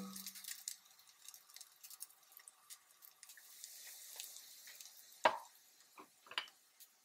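Zucchini pancake frying in hot oil in a cast-iron skillet: a faint, steady sizzle with scattered small crackles, and two louder pops of spitting oil about five and six seconds in.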